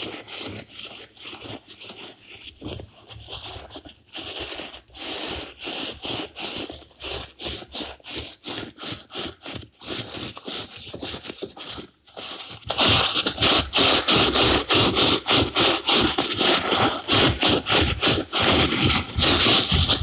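Experimental soundtrack of rhythmic scratching and scraping noises, about three or four strokes a second, turning abruptly louder and denser about thirteen seconds in.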